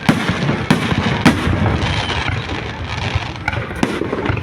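Aerial fireworks display: several sharp shell bursts go off over a continuous crackle of smaller pops.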